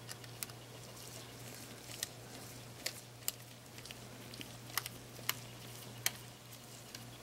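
Small, sharp clicks and ticks, about eight of them spaced unevenly, as a tiny Phillips screwdriver works the screws out of the metal end piece of a compact digital camera, over a faint steady hum.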